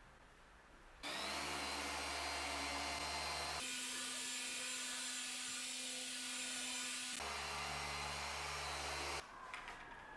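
Electric machine polisher running steadily on car paintwork. It starts suddenly, runs at one pitch, shifts to a higher pitch for a few seconds, shifts back, and stops suddenly near the end.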